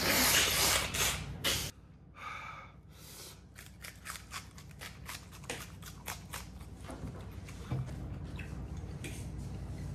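A person blowing their nose hard into a tissue for about a second and a half, a nose running from the raw onion. Then a raw onion is bitten and chewed, giving many small crisp crunches.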